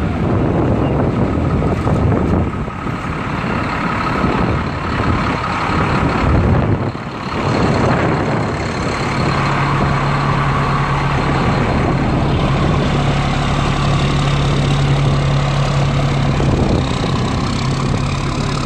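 Fire truck engine running at a steady idle, with wind rumbling on the microphone. About nine seconds in, a steady low engine hum comes to the fore.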